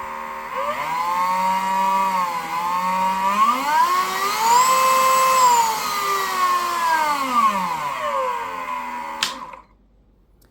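Ingco 20 V cordless mini grinder (rotary tool) running with a high motor whine whose pitch climbs, dips, rises to its highest about halfway through, then falls back as the speed is varied. It cuts off suddenly near the end.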